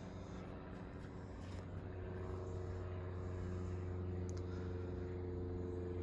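Fasco heat cycler ceiling fan's motor running with a steady electrical hum and blade noise, growing louder about two seconds in and then holding steady.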